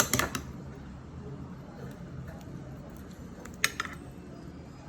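Kitchen utensil clinking and scraping against a dish or tray while a topping is spread, with a cluster of sharp clinks at the start and another about three and a half seconds in.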